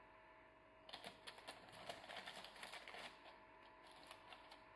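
Faint crackling of parchment baking paper as marinated whole trout are laid on it in a baking tray. A quick run of small crinkles starts about a second in and thins to a few scattered clicks near the end.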